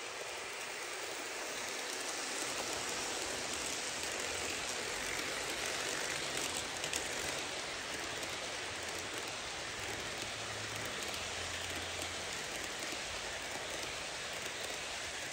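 HO scale passenger train rolling past at close range: the metal wheels of the streamlined cars running on the track make a steady rattling hiss of many fine clicks.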